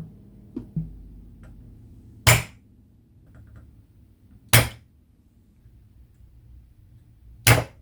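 Spring-loaded desoldering pump (solder sucker) snapping three times, each a sharp loud crack a couple of seconds apart, as it is primed and fired to suck molten solder off circuit-board joints.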